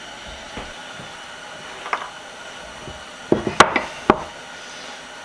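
A few sharp knocks: one about two seconds in, then a quick cluster of clacks ending in a last knock a little before four seconds in.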